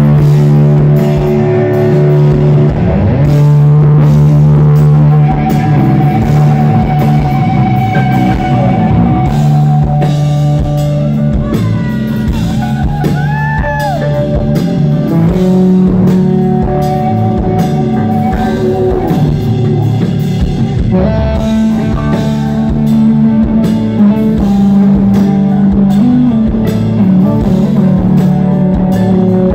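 Rock band playing live and loud: electric guitar holding long notes over bass and drums, with a few bending notes about halfway through.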